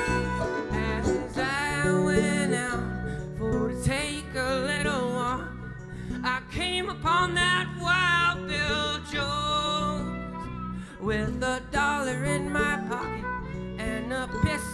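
Live acoustic folk-band music: guitar chords under a lead melody that wavers in pitch.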